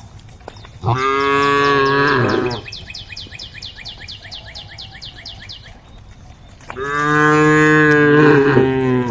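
Cattle mooing: two long, steady moos, one about a second in and another near the end. A fast run of high ticks sounds between them.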